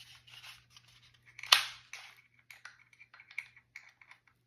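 Plastic parts of a Festool Carvex jigsaw being handled and fitted: a scatter of small clicks and rustles, with one sharp, louder click about a second and a half in.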